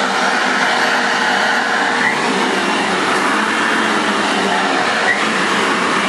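Bissell multi-cyclonic pet upright vacuum cleaner running loud and steady while vacuuming, with a faint steady hum under the rush of air. Two light ticks come through, about two seconds in and again near the end.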